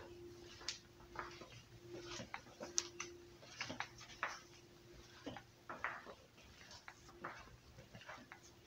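Faint, irregular clicks and light taps, several a second at times, over a steady low hum.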